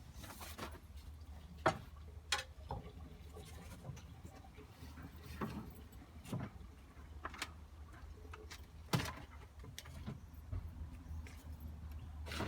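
Scattered sharp knocks and clicks at irregular intervals over a steady low hum, the loudest about two seconds in and again about nine seconds in.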